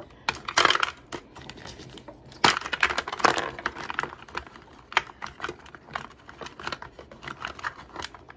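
Small plastic lip balm and lip gloss tubes clicking and clattering as they are handled and moved about, with scattered sharp clicks and two louder bursts of rummaging, about half a second and two and a half seconds in.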